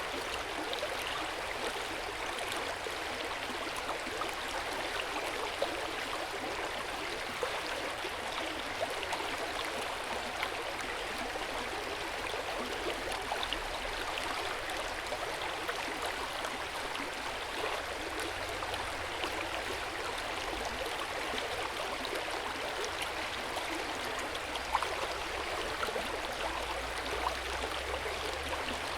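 Hot-spring water flowing steadily into an open-air bath. It makes a continuous splashing with small drips and plinks scattered through it.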